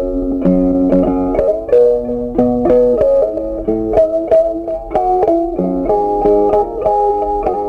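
Background music: a plucked guitar playing a melody of picked notes.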